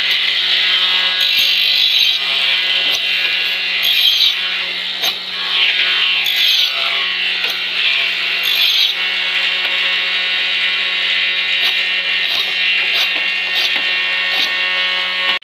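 Bench-mounted electric motor spinning an abrasive sanding disc, with thin wooden strips pressed against it one after another: a steady motor whine and hum under a grainy rasp of wood being sanded that swells and eases with each strip, with occasional light clicks of the wood pieces.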